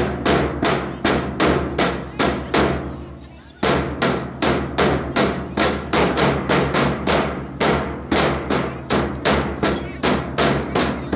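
Sharp percussive beats in a steady rhythm, about three a second, each dying away quickly, with a short break about three and a half seconds in, over a steady low hum.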